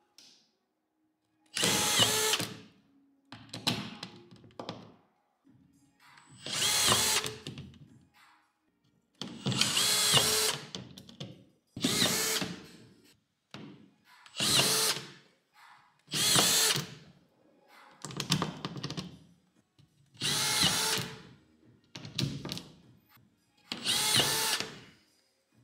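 Makita DFS452 18V brushless cordless drywall screwdriver driving screws into drywall. The motor runs in about a dozen short bursts of a second or so, each a screw being sunk, with short pauses between.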